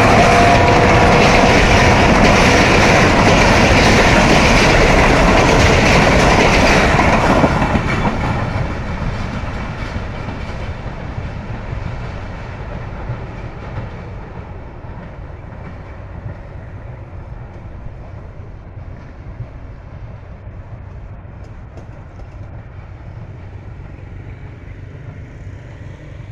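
Jaffar Express passenger train passing close by, its wheels clattering over the rails. The sound is loud until about seven seconds in, then fades as the train moves away, leaving a faint low rumble.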